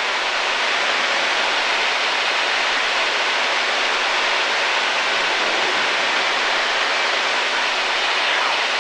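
Steady cabin noise of a Mooney single-engine light aircraft in flight: an even hiss of engine and airflow with a faint low hum underneath, the plane descending with its power pulled back.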